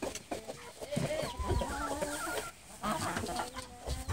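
A flock of American Buckeye hens clucking, several calling over one another, with a brief lull about two and a half seconds in.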